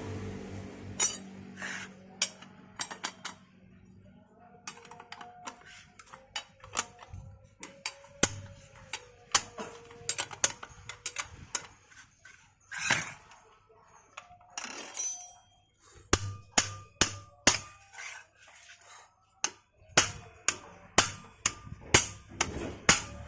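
Irregular metallic clicks, taps and clinks of hand tools and scooter transmission parts being handled and fitted together, some in quick runs of several strikes.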